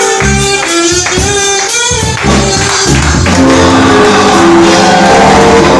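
Live praise-and-worship music: a band playing with singing, the sound thinning briefly about two seconds in before filling out again.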